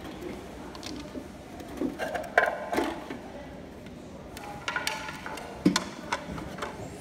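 Hard plastic clicks, knocks and rattles as ABS plastic baluster mold panels are handled and fitted together and black clips are pressed onto their flanges. Two sharp snaps stand out, about two and a half and five and a half seconds in.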